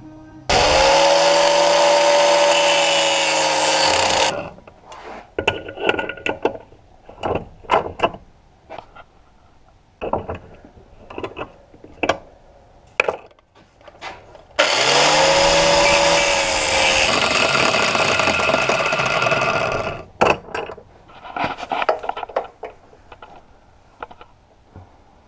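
Angle grinder run twice, each time spinning up with a rising whine into a loud, steady grinding hiss, once for about four seconds and later for about five seconds. Between the runs come short clicks and knocks of metal parts and tools being handled.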